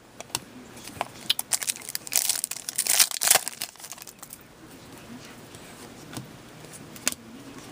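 Foil wrapper of a hockey card pack crinkling and tearing as it is opened by hand, with cards handled. It is busiest from about one to three and a half seconds in, then fainter.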